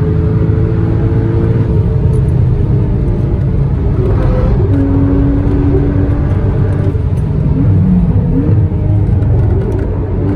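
Porsche Cayman S (981) 3.4-litre flat-six engine running hard at speed, its pitch shifting several times with throttle and gear changes, including a couple of short rises near the end.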